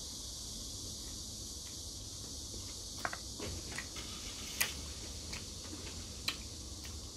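Eating sounds from a man chewing noodles and meat: a handful of short mouth clicks and smacks, mostly in the second half, over a steady background hiss.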